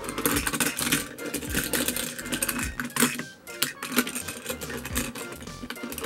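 Rapid, irregular clicking and rattling of a diecast toy car and plastic playset parts as the car is pushed through the playset, over background music.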